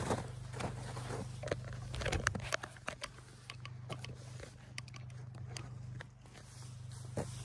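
Camera handling noise: irregular clicks, knocks and rustling as the camera is picked up and moved about, over a steady low hum.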